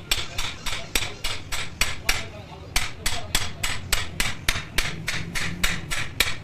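Hand hammer striking a steel pin held in a truck's steering knuckle, driving it into the bore during king pin and spindle bushing work. Regular blows about three a second, each with a bright metallic ring, with a brief pause a little past two seconds in.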